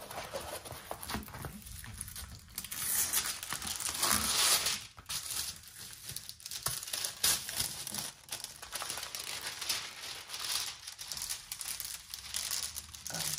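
Crinkling and rustling of a plastic-film-covered diamond painting canvas as it is turned over and smoothed flat by hand, in irregular bursts that are loudest about three to five seconds in.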